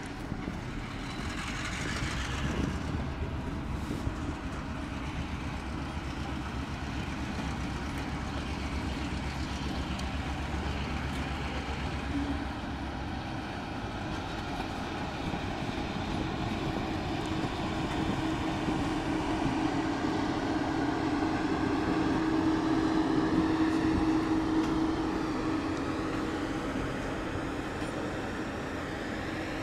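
Freight and bunk cars of a work train rolling past at low speed: a steady rumble and rattle of wheels on the rails. A steady hum comes in about halfway through, grows a little louder, and fades near the end.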